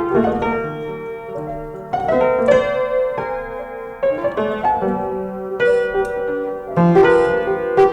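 Piano music: a melody of struck notes that ring on and overlap.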